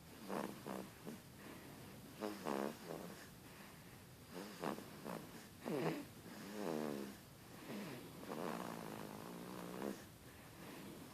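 Snoring in sleep: a series of pitched, buzzing snores on the breaths, one every second or two, the longest drawn out near the end.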